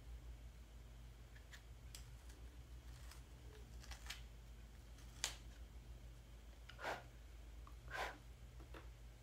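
Faint clicks and rustles of small makeup items being handled, with one sharp click about five seconds in and two short scrapes near the end, over a steady low hum.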